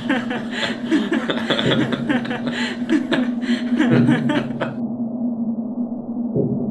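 A person's rapid chuckling laughter over a steady low drone. About four and a half seconds in, the laughter is cut off abruptly and the sound turns muffled, leaving the drone.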